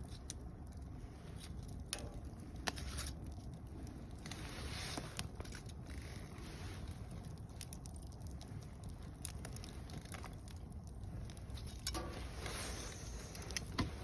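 Campfire of mixed softwood and hardwood logs burning: a steady low rush of flame with scattered crackles and sharp pops, the loudest pop about three seconds in and another near the end.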